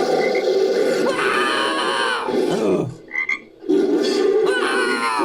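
Frog croaks, edited and layered into the made-up call of a humanoid frog creature: a long rough croaking call, a brief break about three seconds in, then a second call.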